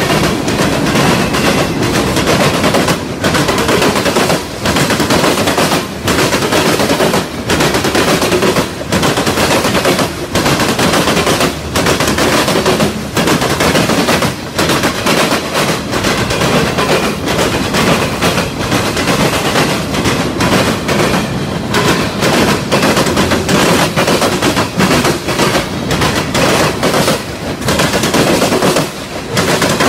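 Freight cars of a passing train, boxcars and covered hoppers, rolling by close at hand: a loud, continuous rush with rapid clattering of steel wheels on the rails.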